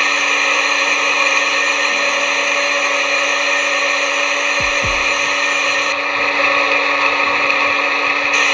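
Simulated CNC lathe machining sound from CNC Simulator software during a G76 thread-cutting cycle: a steady machine whir with a high cutting hiss. The hiss cuts out about six seconds in as the tool returns to the start of the thread, and comes back near the end as the next threading pass begins.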